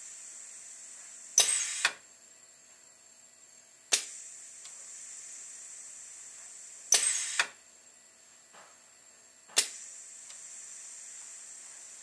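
Pneumatic air cylinder driving a rubber ram onto a 1500 ml manual resuscitator bag as an automatic ventilator, cycling about every five and a half seconds. A sharp valve click starts a steady high hiss of air that lasts about two and a half seconds. Then another click comes with a short rush of air, followed by a quieter pause before the next click.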